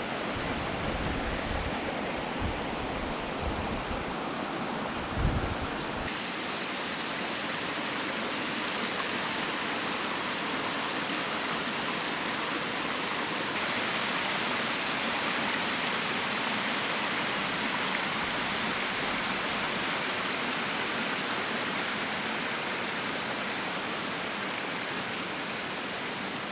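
Steady rush of water from a small mountain stream cascading over rocks. In the first few seconds there is a low outdoor rumble and a single thump about five seconds in.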